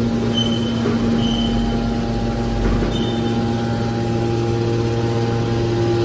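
Heavy-duty hydraulic scrap metal baler's power unit running: a steady hum from the electric motor and hydraulic pump, with a few brief high tones in the first few seconds.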